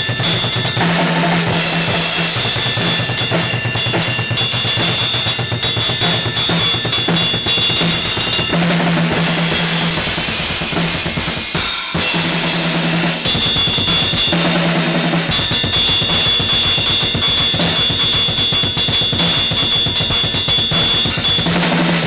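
Music with a steady drum-kit beat (bass drum, snare and cymbals) over a bass line, with a brief break about halfway through.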